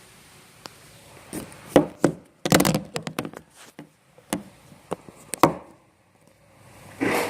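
Irregular knocks and taps from handling objects, several in quick succession, then a brief pause before another knock near the end.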